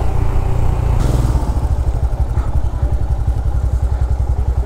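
Motorcycle engine dropping off from riding speed about a second in, then idling with an even, rapid low beat as the bike comes to a stop.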